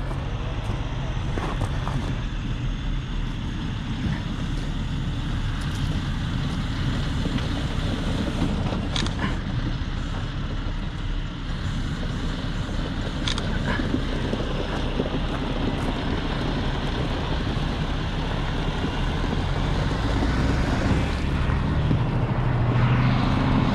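Heavy diesel truck engine idling, a steady low rumble that grows slightly louder near the end.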